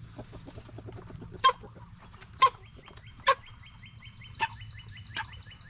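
Chickens calling: five short, sharp squawks about a second apart over softer quick clucking. Through the second half a faster, fainter high chirping repeats several times a second.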